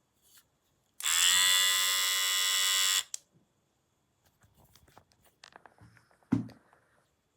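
Cordless electric hair clipper switched on, running with a steady buzz for about two seconds, then switched off. Afterwards come light clicks of handling and one sharp knock near the end.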